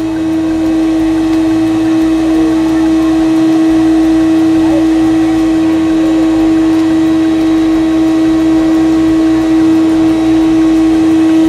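Plush-toy stuffing machine running steadily, its blower motor humming over a rush of air as it blows fibre filling into a stuffed toy.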